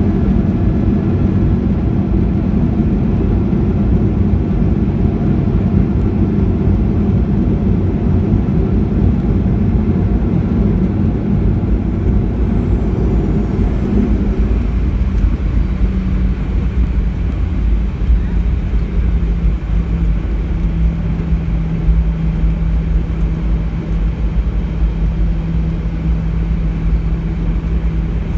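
Cabin noise of a Boeing 737-700 rolling on the ground after landing: a loud, steady rumble from its CFM56 jet engines and the airframe. The rumble eases about halfway through, leaving a steady low engine hum as the jet slows.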